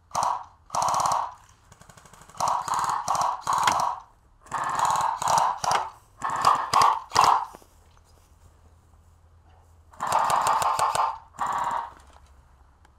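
Automatic-gunfire sound effect played through the small speaker of a prototype Kytech Custom Sound Device fitted to airsoft rifles, fired in repeated bursts of about a second each. There is a pause of a couple of seconds just after the middle.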